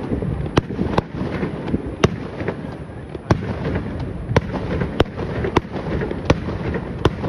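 Aerial firework shells bursting: sharp bangs at uneven intervals, about one or two a second, over a continuous low rumble.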